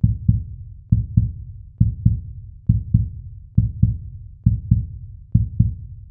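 Low, dull double thumps like a heartbeat, one pair about every second, repeating evenly.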